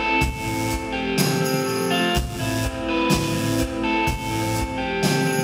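Live pop band playing an instrumental passage with no singing, electric bass among the instruments, over a steady beat of about one stroke a second.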